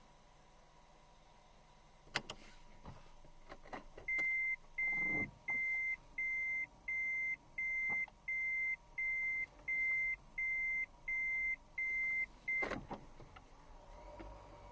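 A car's in-cabin reverse warning beeper sounding about a dozen even, single-pitched beeps, roughly one and a half a second, while the car backs up. A few sharp clicks come before it, and a knock as the beeping stops.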